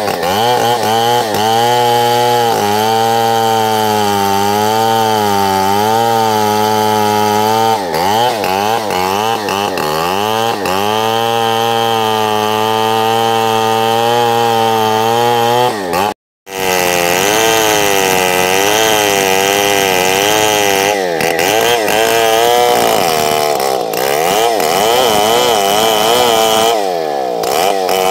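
Chainsaw running at high revs while cutting into a tree, its engine pitch sagging and recovering again and again under the load of the cut. The sound drops out abruptly for a moment about halfway through, then carries on.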